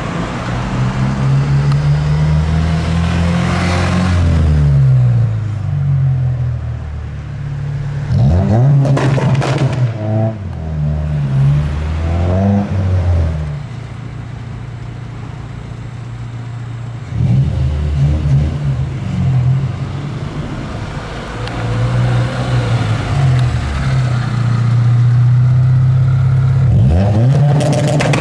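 Honda CRX's B16A 1.6-litre VTEC four-cylinder engine being revved again and again, its pitch climbing and falling between spells of steady idle. About nine seconds in there is a burst of sharp pops.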